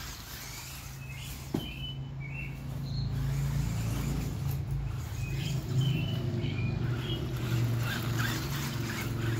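Steady low motor hum that grows louder over the first few seconds, with a click about a second and a half in and birds chirping.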